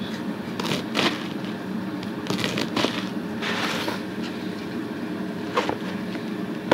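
A knife slicing through a roll of collard green leaves: a handful of short, crisp cuts and leaf rustles at irregular intervals, over a steady low hum.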